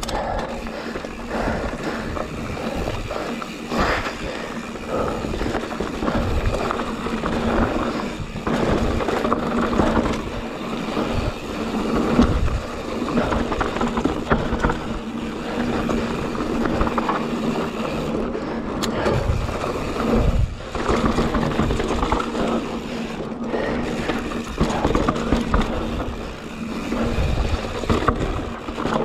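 YT Jeffsy full-suspension mountain bike riding down a dry, hard-packed dirt trail: knobby tyres rolling and scrabbling over dirt and bumps, with the bike rattling and knocking throughout.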